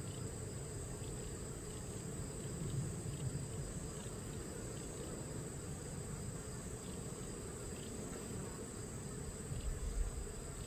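Honeybees humming over an opened Langstroth hive, a steady low drone, with a steady high-pitched whine above it. A brief low bump comes near the end.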